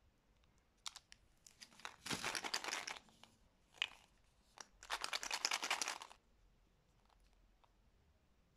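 Plastic candy wrappers crinkling as they are handled, in two loud stretches of about a second each, around two and five seconds in, with a few lighter rustles and clicks between.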